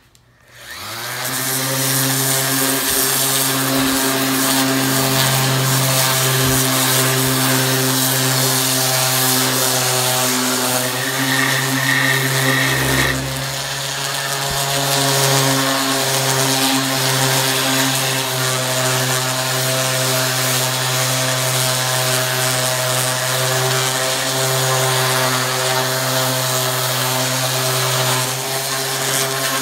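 DeWalt random orbit palm sander starting up and running steadily while sanding a wooden axe handle with coarse 60-grit paper. The motor winds up to full speed over about a second and a half, then runs with a steady hum and sanding hiss that dips briefly about halfway through.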